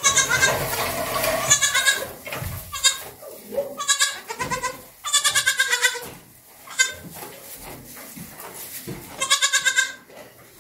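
Newborn goat kids bleating: a string of high, quavering bleats, some overlapping, with longer runs about five seconds in and again near the end.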